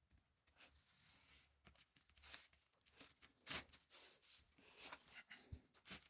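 Faint, irregular rustling and scraping as hands press self-adhesive gasket strip down along the edges of a wooden panel, with several short scratchy sounds.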